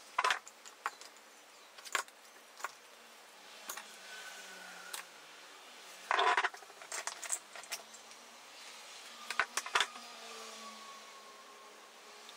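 Scattered clicks, taps and brief rustles of small objects being handled and set down on a workbench: clear acrylic light-guide panel pieces, a cloth and scissors. The loudest is a short rustling scrape about six seconds in, followed by a few quick clicks.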